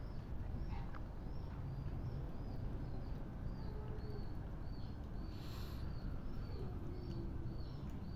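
A small bird chirping over and over, short high chirps about two a second, over a steady low background rumble. A brief hiss about five and a half seconds in.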